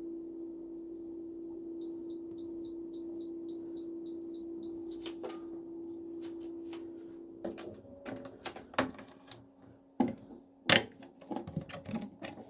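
iHunt 3 kg mini automatic washing machine running with a steady motor hum while its control panel beeps six times in quick succession. Its motor stops about two-thirds of the way in, followed by scattered clicks and knocks.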